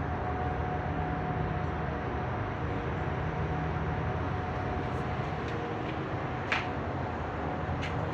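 Continuous low mechanical drone with a steady hum of several tones, which the recorder takes to be a motor running at the hospital and which has kept going for about an hour. A short click sounds about six and a half seconds in.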